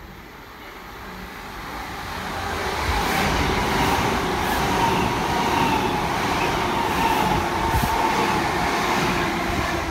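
Electric multiple-unit passenger train running along the platform. Its noise builds over the first three seconds and then holds steady as the carriages pass, with a steady whine and a few faint wheel clicks.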